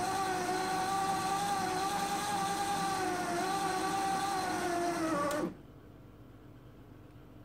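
Electric motor and open, unlubricated gearbox of a homemade plastic injection machine running with a steady gear whine while the piston drives molten plastic out. The whine is loud because the gearbox is unenclosed and has no lubrication. Its pitch dips slightly, and then it stops abruptly about five and a half seconds in.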